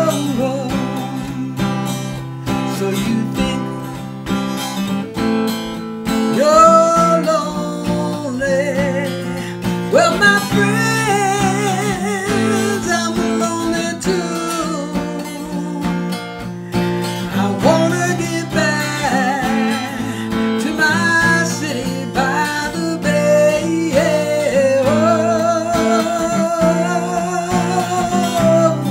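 Harmonica solo over a strummed acoustic guitar: the harmonica plays phrases of wavering, bent notes above steady guitar chords.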